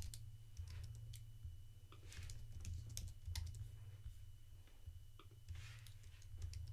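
Computer keyboard typing: faint, irregular keystrokes over a steady low hum.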